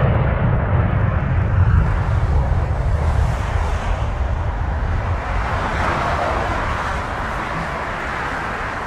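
Widebody jet airliner's engines at takeoff thrust: a loud, deep rumble with a hiss that slowly fades as the aircraft climbs away.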